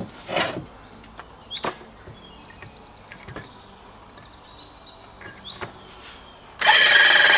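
Birds chirping, with a few light knocks as the hole saw is seated on the plywood. About a second before the end, a Parkside cordless drill with a hole saw starts suddenly and cuts loudly and steadily into 18 mm plywood.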